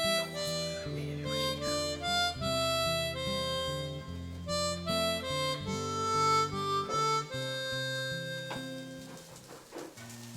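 Background music: a harmonica playing a melody over guitar chords.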